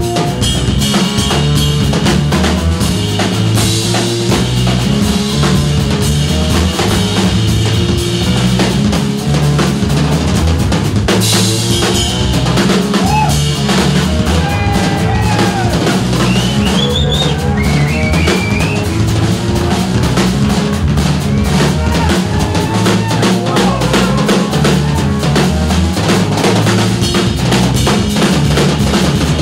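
Live rock-blues band playing an instrumental passage: drum kit keeping a steady beat with bass drum, snare and rimshots under an electric bass line. About halfway through a few bending high notes come over the top.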